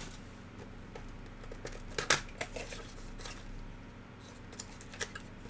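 Hands handling a cardboard mini box and foil-wrapped trading card packs: scattered rustles, crinkles and light clicks, the sharpest a little over two seconds in.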